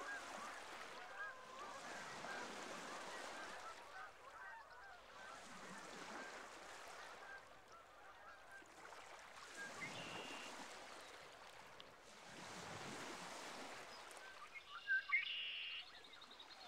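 A flock of geese honking, many overlapping calls thickest in the first half, with one louder, sharper call near the end. Behind them a wash of water swells and fades every few seconds.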